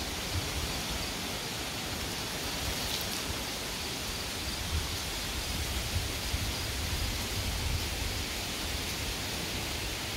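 Steady rustling hiss of wind through the forest leaves, with an uneven low rumble of wind on the microphone.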